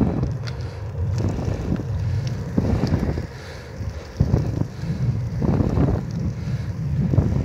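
Wind buffeting the microphone of a camera on a moving bicycle: a steady low rumble that swells in uneven gusts.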